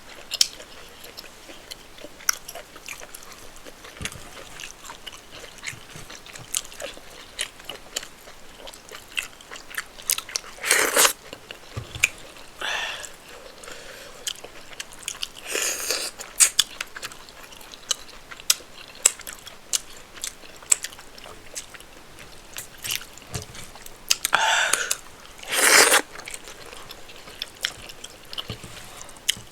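Close-miked chewing and wet mouth clicks from eating rice and spinach stew with chicken, a steady patter of small smacks broken by a few louder, noisy bursts of about half a second to a second.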